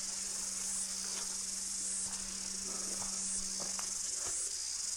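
A steady, high-pitched insect chorus that swells and eases every second or so, over a faint steady low hum.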